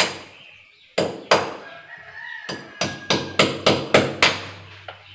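Hand hammer striking hard at the concrete floor in about a dozen sharp blows: single strikes at first, then a quick run of about four a second in the second half. A rooster crows in the background about two seconds in.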